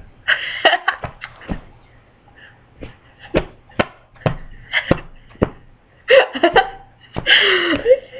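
Armpit farts: a hand cupped under the arm and pumped, giving a series of sharp smacks and a few longer fart-like bursts about half a second in and again in the last two seconds, with laughter mixed in.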